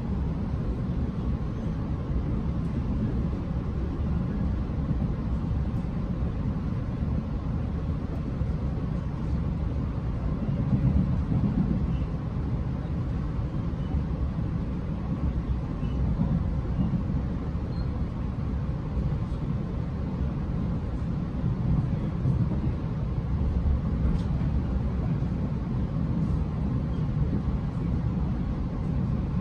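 Steady low rumble of a Tze-Chiang express train in motion, heard from inside the passenger car.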